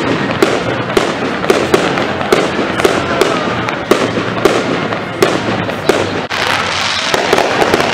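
Fireworks display going off: an irregular string of sharp bangs and crackles, about two or three a second, over a continuous rumble of noise.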